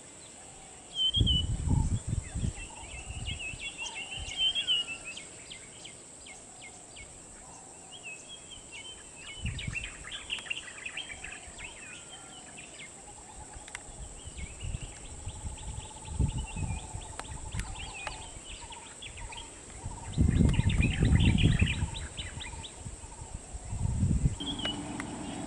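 Several birds chirping and trilling. A few bursts of low rumble are the loudest sounds, about a second in and again around twenty seconds in.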